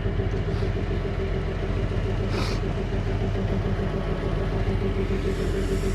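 Vehicle engine running steadily, a continuous low rumble with a constant hum.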